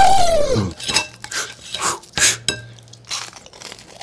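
A falling vocal sound trails off at the start, then light clinks of cutlery and dishes on a metal tray and plate, with small eating noises.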